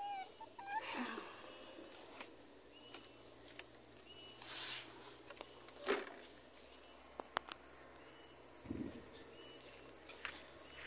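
A steady, high-pitched insect chorus runs throughout. Scattered short clicks and a few brief rustles break over it, the loudest about halfway through.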